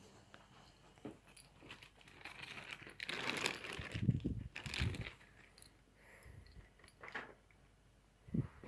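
Rustling and crinkling of paper or packaging being handled, loudest in a stretch a few seconds in, with a few light clicks.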